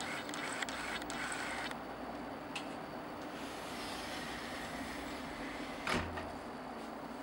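Room tone: a steady low hiss and faint hum, with a few light clicks in the first two seconds and a single soft knock about six seconds in.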